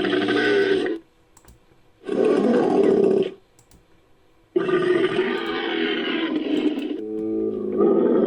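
Invented Edaphosaurus creature calls, mixed from camel, bull and walrus sounds: three loud, rasping bellows with short pauses between them, then a lower, more tonal moaning call that swells near the end.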